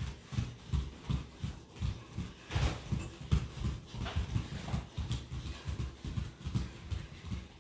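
Several people's bare feet thudding on the floor while running high knees in place: a quick, uneven run of dull thumps, about three to four a second.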